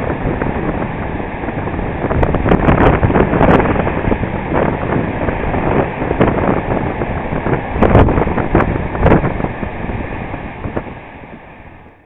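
Storm waves crashing and surging against a stone sea wall, with strong wind buffeting the microphone. The sound fades out near the end.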